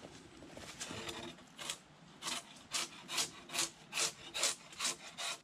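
Handsaw cutting through a log: a few uneven strokes at first, then a steady rhythm of about two and a half strokes a second.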